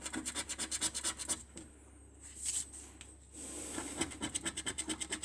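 Scratchcard being scratched off: quick back-and-forth strokes at about ten a second, in two runs with a short pause between.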